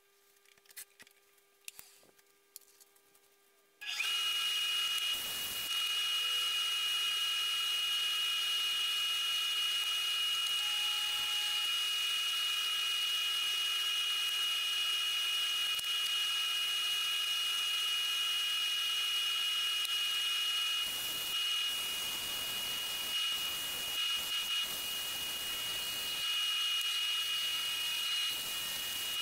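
A few light metal clicks from a chuck key on a drill chuck, then about four seconds in a wood lathe starts and runs at steady speed with a high, even motor whine.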